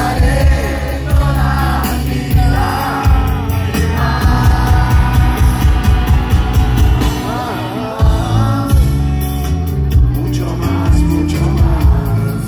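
Live rock band playing through a large outdoor sound system, with heavy drums and bass and voices singing along, heard from within a dense crowd.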